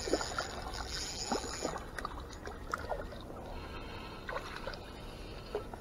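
Quiet pond-side ambience: low wind rumble with faint water sounds and a few scattered short, high chirps.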